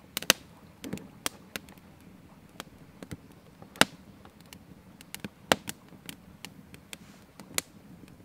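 Wood campfire crackling: scattered sharp pops and snaps at irregular times, a few of them loud.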